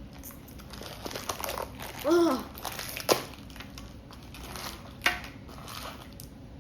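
Packaging of a small blind box crinkling and rustling as it is handled and opened, with a couple of sharp clicks, one about three seconds in and one about five seconds in.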